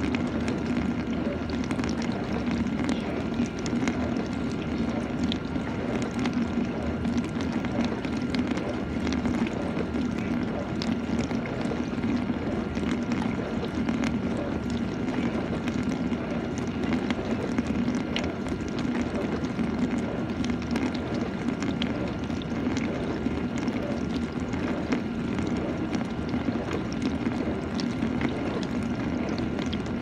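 GE dishwasher running mid-cycle: a steady hum from its pump with water spraying and sloshing inside the tub.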